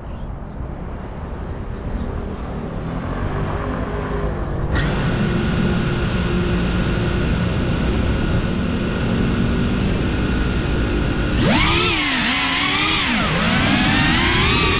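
Brushless motors of a Cinelog 35 ducted FPV quad starting about a third of the way in and spinning at a steady idle whine. Near the end the whine swings sharply up and down as the throttle is worked and the quad lifts off. Before the motors start there is a low rushing noise that grows louder.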